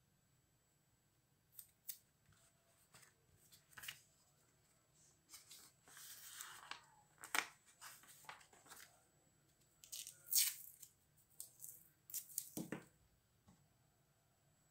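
Masking tape being pulled off and torn, then pressed onto sheet paper, amid paper rustling and small sharp clicks. The sounds come in short bursts, with a longer pull of tape about six seconds in.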